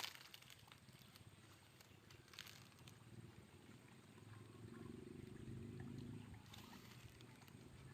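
Near silence: faint outdoor ambience with a sharp click at the start, a few soft clicks, and a faint low hum about halfway through.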